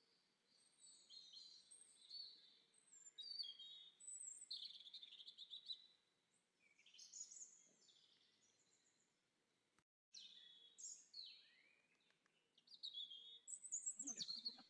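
Faint chirps and whistles of small birds, short high calls that rise and fall in pitch and come in scattered bursts.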